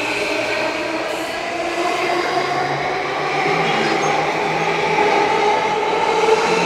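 E235-series Yamanote Line electric train running, its motor whine rising slowly in pitch as it accelerates, over the steady noise of the train moving along the track.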